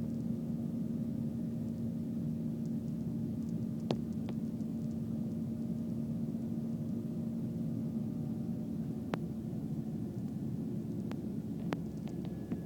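Steady drone of a jet airliner's engines heard inside the passenger cabin: a low, even hum with one steady tone, and a few faint clicks.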